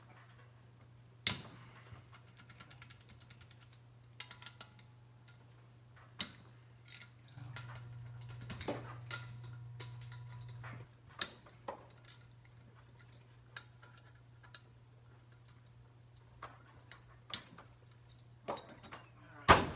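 A hand wrench working the bolts on an EverClean's motor: scattered metallic clicks and clinks, with a sharp clank about a second in and a louder one near the end. A low steady hum runs underneath and grows louder for about three seconds in the middle.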